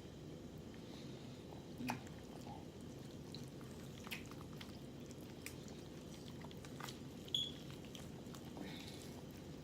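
Close-miked mouth sounds of someone eating rotisserie chicken: wet chewing with scattered lip smacks and clicks, the sharpest about two seconds in and again past the seven-second mark, over a steady low hum.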